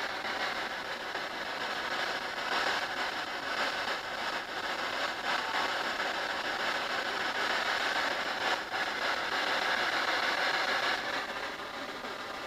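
Handheld spirit box sweeping the radio band: a steady hiss of radio static with faint flickers as it scans.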